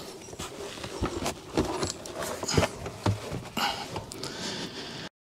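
Plastic car door trim panel being handled: scattered knocks, clicks and scrapes, cutting off suddenly near the end.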